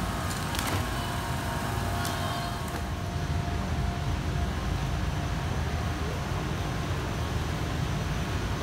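Steady low rumble of refrigeration and air-handling fans in a warehouse store's produce cooler, with a few sharp clicks in the first couple of seconds.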